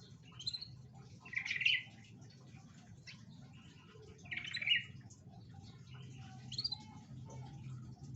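Canary chirping in short bursts, about four calls with pauses between them, the loudest about a second and a half in and again about four and a half seconds in, over a faint low hum.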